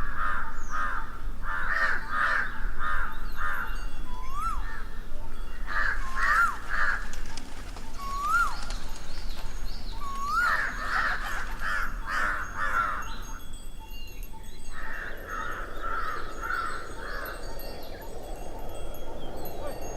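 Birds calling: quick runs of repeated harsh calls, broken by four short rising whistled notes in the middle. About three-quarters of the way through, a soft steady rushing sound comes in underneath.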